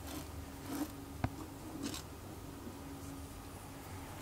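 Faint scratchy rustling of fingers brushing and levelling the granules of aquarium soil substrate in a dry glass tank, with one sharp click about a second in.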